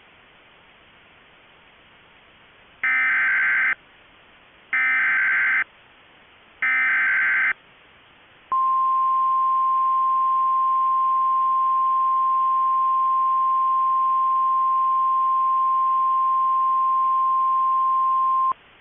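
Emergency Alert System SAME header: three short bursts of warbling data tones about two seconds apart, then the NOAA Weather Radio 1050 Hz warning alarm tone held steady for about ten seconds, over a faint steady hiss. Together they signal the start of a Severe Thunderstorm Warning broadcast.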